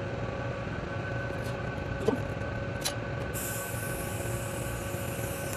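TIG welding arc on a stainless steel pipe socket fitting: a steady high hiss starts suddenly a little past halfway and keeps going, over a steady hum. Two light clicks come about two and three seconds in, before the arc is struck.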